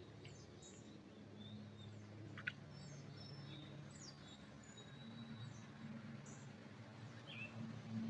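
Songbirds calling faintly: scattered short high chirps and thin whistles, with one sharper, louder chirp about two and a half seconds in, over a steady low hum.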